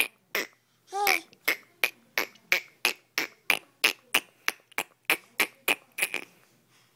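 A toddler making a rapid string of short, breathy mouth noises, about three a second, with one short voiced sound about a second in.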